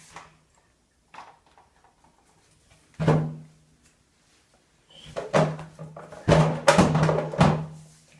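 A series of loud knocks: one about three seconds in, then several in quick succession near the end.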